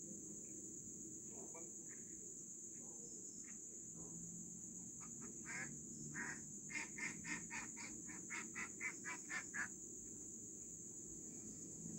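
An animal giving a rapid run of about a dozen short croaking calls, roughly three a second, starting about five seconds in and stopping near ten seconds, over a steady high-pitched hiss.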